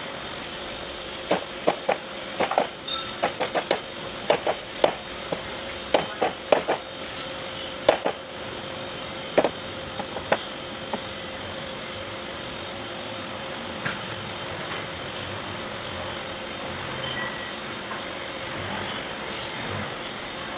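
Sharp metallic taps and clinks, about twenty over the first ten seconds, as the steel parts of a Kubota B1502 front axle gear case (seal, splined shaft, housing) are knocked and fitted together. After that there is only a steady background hum.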